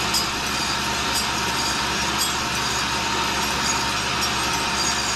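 No. 2 tool and cutter grinder running, its grinding wheel grinding a small steel line boring bar turned in the workhead chuck: a steady noise of wheel on steel over the motors' hum. The grind is taking a few tenths of a thousandth off one end of the bearing surface to correct a taper.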